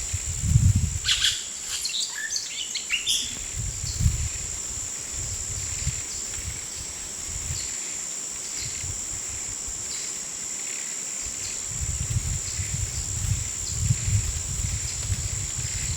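Jungle afternoon ambience: a steady high-pitched insect drone with soft chirps repeating through it, and a flurry of bird calls in the first few seconds. A low rumble swells and fades now and then.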